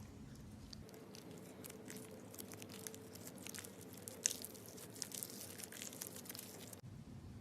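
Slime being squeezed and worked by hand, giving faint, irregular crackling and small clicks.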